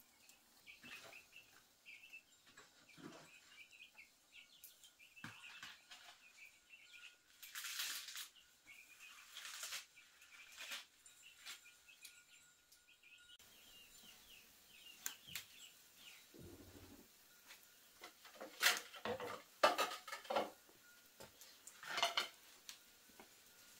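Scattered light knocks, clatter and scrapes of things being handled, loudest in a cluster of sharp clicks about three-quarters of the way through, over faint birds chirping.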